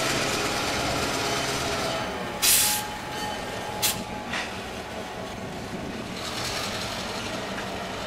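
Two-stroke EMD 567 diesel prime mover of a CN GP9RM locomotive running as the locomotive moves slowly with its freight cars. A sudden loud burst of noise comes about two and a half seconds in, and a sharper, shorter one about a second later.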